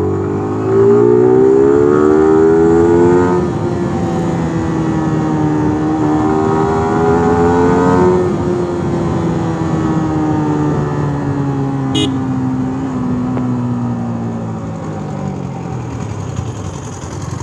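Yamaha R15 V3's single-cylinder engine pulling through the gears: its pitch climbs, drops at a gear change about three seconds in, climbs again and drops at another change about eight seconds in, then falls slowly as the bike eases off. One short sharp click about twelve seconds in.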